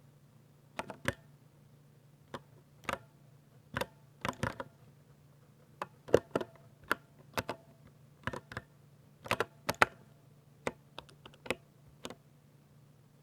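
Typing on a Ducky mechanical keyboard with silver switches: irregular keystrokes, single or a few in quick succession, with short gaps between them.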